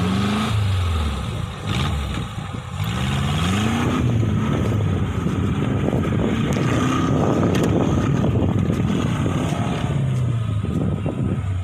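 Off-road tube-frame buggy's engine revving as it drives over the dirt track, its pitch climbing and falling with the throttle and easing down near the end.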